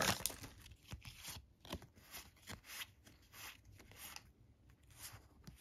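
Pokémon trading cards pulled from a foil booster pack and slid past one another by hand: a string of faint, short swishes and rubs.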